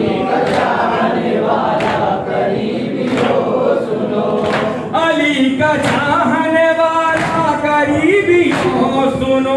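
A group of men singing a Muharram nauha in chorus, with hand claps in unison about every 0.7 seconds keeping the beat. The singing becomes clearer about five seconds in.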